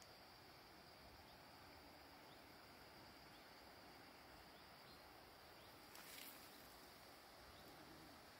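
Near silence: faint rural outdoor ambience with a steady high-pitched hiss and a few faint chirps, and a brief rustle about six seconds in.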